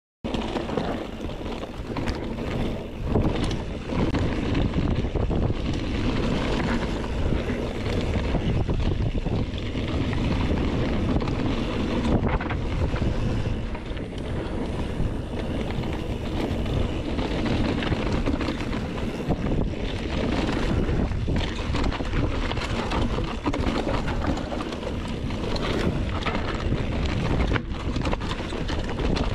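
Wind rushing over a helmet or chest-mounted action camera's microphone and knobby tyres rolling over dirt and rock as a mountain bike descends a trail, with scattered knocks and rattles from the bike. Near the end the chain gives a clunk, the first sign of the chain trouble that soon throws it off.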